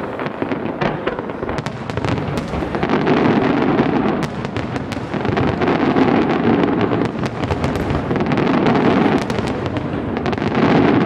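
Aerial fireworks display bursting: many sharp cracks and pops in quick succession over a continuous rumble, thickest through the middle.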